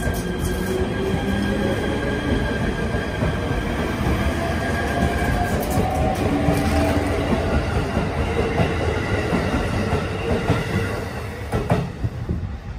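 253 series electric multiple unit train running past along a station platform: steady wheel-on-rail rumble with motor hum. It grows louder through the first half and drops away near the end as the last car clears.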